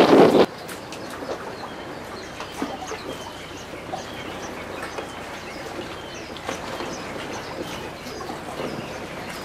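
Wind buffeting the microphone, cutting off abruptly about half a second in. After it comes a quieter, steady open-air background with many short, high chirps.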